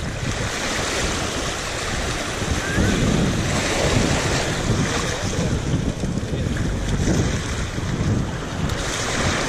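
Small ocean waves washing and lapping over a sandy shoreline in shallow water, with wind buffeting the microphone.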